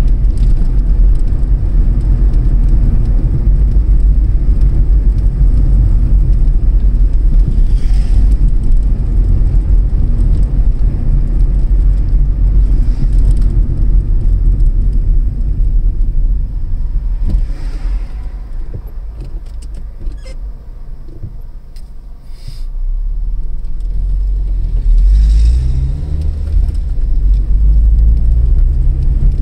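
Car driving, heard from inside the cabin: a loud, steady low rumble of engine and road noise. About two-thirds of the way through it quietens as the car slows, then the engine rises in pitch as it pulls away again.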